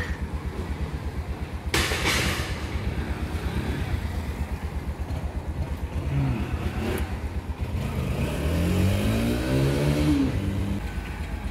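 Small vehicle engine idling with a steady, fast low putter; its pitch rises and falls once in a brief rev near the end. A short hiss comes about two seconds in.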